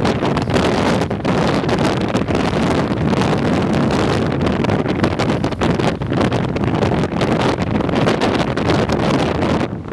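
Gale-force storm wind buffeting the microphone in gusts, over the continuous rush of heavy surf breaking on the shore.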